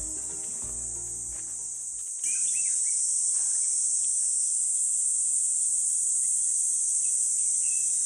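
Soft music with low held notes for about two seconds, then an abrupt change to a steady, high-pitched insect drone, with a few short bird chirps just after the change.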